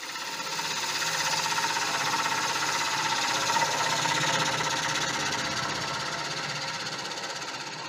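Turning tool cutting into a wet monkey puzzle bowl blank spinning on a wood lathe, trimming the tenon: a steady cutting noise that starts suddenly and eases off slowly near the end.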